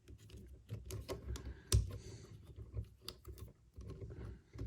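Hard plastic parts of an MPM-11 Ratchet Transformers figure clicking and knocking as it is handled and transformed: a run of irregular light clicks, with one louder knock a little under two seconds in.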